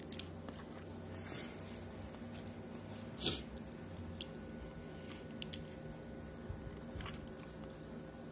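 Someone chewing a mouthful of taco, with scattered small clicks and one louder crunch about three seconds in, over a steady low hum.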